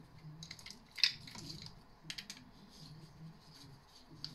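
Screwdriver undoing the screw of a plastic three-pin mains plug, with a few light clicks and scrapes of plastic and cable being handled, the sharpest about a second in.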